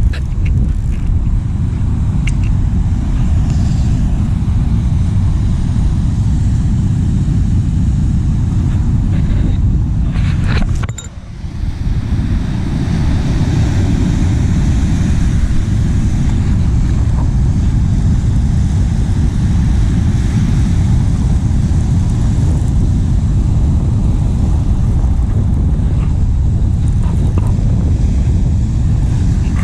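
Wind buffeting the microphone: a loud, steady low rumble with fast flutter that briefly drops away about eleven seconds in.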